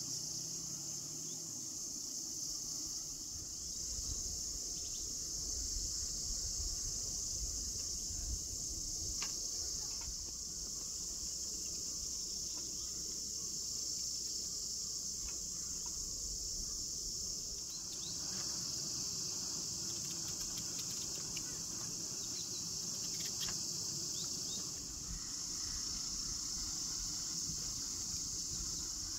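Steady, high-pitched chorus of forest insects, a continuous shrill drone that holds unbroken throughout.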